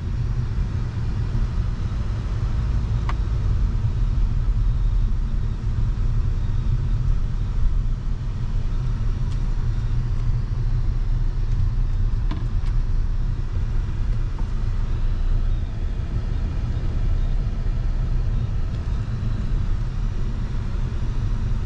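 A car driving at a steady pace, a continuous low rumble of road and engine noise.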